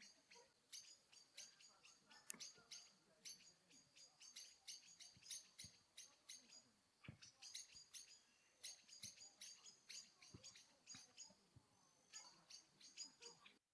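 Small birds chirping and twittering in quick runs of short, high notes, faint throughout; the sound cuts off abruptly near the end.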